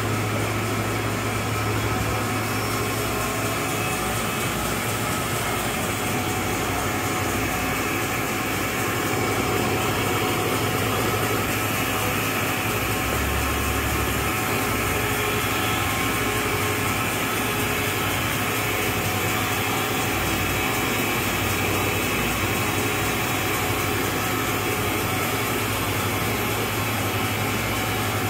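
Walter Helitronic Power 5-axis CNC grinder running with coolant spraying inside its enclosure: a steady low hum under an even hiss.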